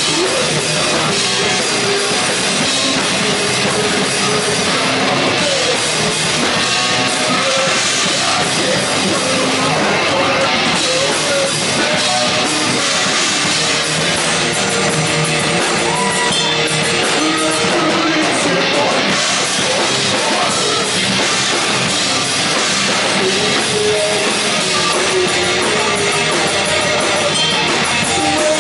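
A rock band playing live and loud: electric guitar over a drum kit, dense and without a break.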